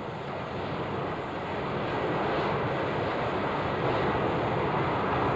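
Jet engine (gas turbine) running: a steady rushing noise that grows gradually louder.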